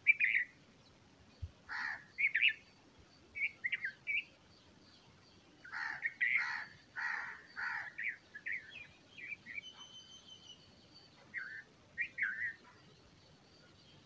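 Bulbul chirps: a string of short, sharp chirping notes in irregular clusters, busiest about six to eight seconds in.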